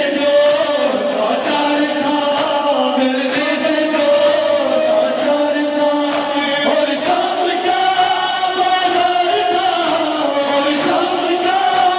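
A male reciter chanting a noha, a Shia lament, in long held melodic lines. A sharp beat about once a second keeps time with it: mourners doing matam, chest-beating.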